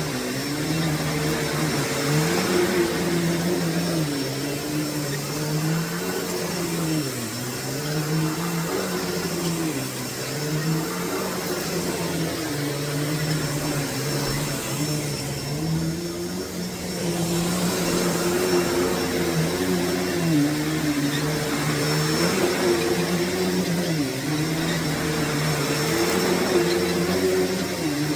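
Hoover Deluxe Elite Rewind U5509-900 upright vacuum cleaner running over carpet, with a steady motor hum whose pitch dips and recovers every couple of seconds.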